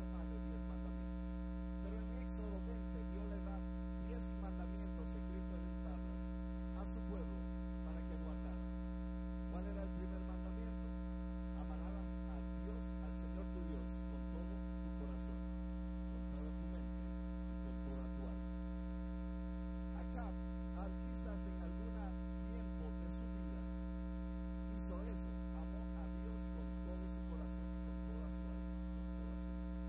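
Steady electrical mains hum: a low buzz made of many evenly spaced tones that covers everything else.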